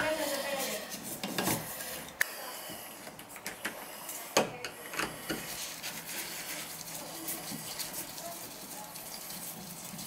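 Screwdriver clicking and scraping against the metal trim and stem of a single-handle tub/shower valve as its handle is unscrewed and taken off. Scattered sharp metallic clicks, with louder ones about two and four and a half seconds in, then quieter scraping.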